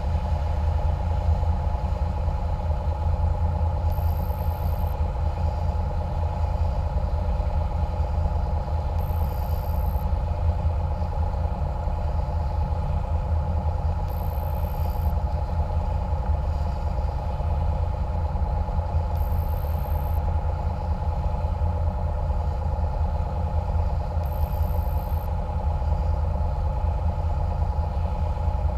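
Engine of a small catamaran cruiser running steadily while the boat is under way, a low rumble with a steady hum above it.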